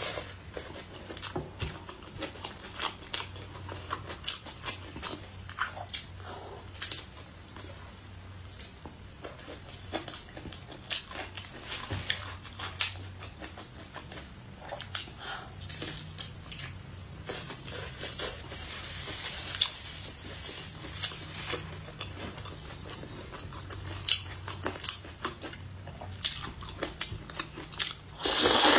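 Close-up eating sounds: a person biting and chewing a crisp sesame flatbread sandwich, with many small crunches and mouth clicks. Near the end comes a loud slurp of noodles.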